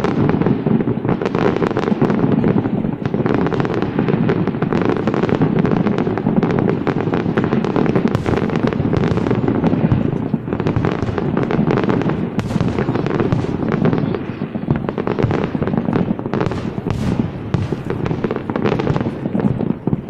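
Fireworks display going off in a dense, continuous barrage of booms and crackling bursts. It thins to more separate bursts in the last few seconds.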